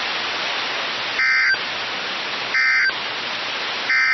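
Three short warbling data bursts, about 1.4 seconds apart, over a steady hiss of radio static. They are NOAA Weather Radio SAME digital code bursts, and their short length is typical of the end-of-message code that closes a warning broadcast.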